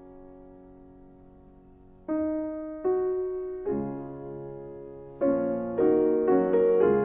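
Slow solo piano music: a held chord fades away, then single notes and chords are struck one by one, coming closer together near the end.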